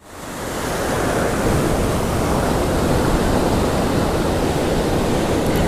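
Rough ocean surf washing in, a steady rushing of breaking waves and foam with wind on the microphone. It fades in over the first second.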